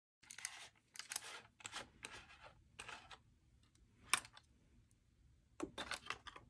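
Plastic battery cap being twisted off the end of a Carat Bong ver. 3 lightstick handle: a string of short, scratchy strokes of the threads turning and hands on the plastic, with one sharp click about four seconds in.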